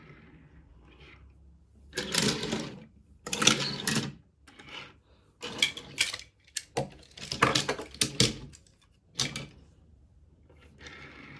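Toy-car packaging being handled and torn open: two rustling, tearing bursts, then a run of sharp plastic crackles and clicks.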